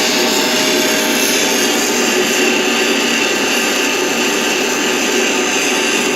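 Bench grinder running with a round high-speed-steel skew chisel held against its coarse wheel, about 60 grit, and worked side to side to grind the bevel: a steady grinding noise.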